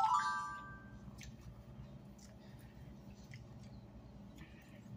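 Quiet room tone: a low steady hum with a few faint, scattered clicks. A voice fades out in the first second.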